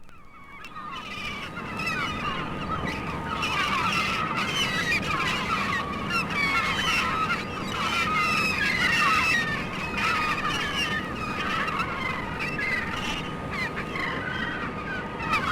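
A large flock of birds calling all at once, many short overlapping honks and squawks. It fades in over the first couple of seconds and then holds steady.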